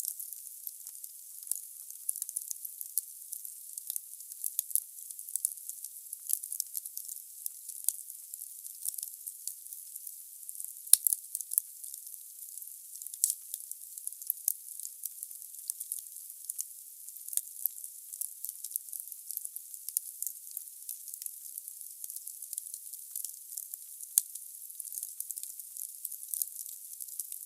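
Wood logs burning in a fireplace: steady hissing with dense small crackles, and a sharp louder pop about eleven seconds in and another a few seconds before the end.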